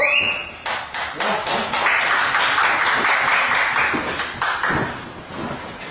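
Spectators clapping in the gym: a quick run of sharp claps, then a couple of seconds of denser applause-like noise that fades near the end.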